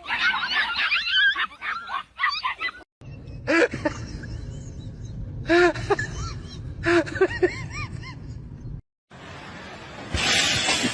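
Short arched animal calls from pets, five or six in a row. The sound cuts off abruptly twice as one clip gives way to the next.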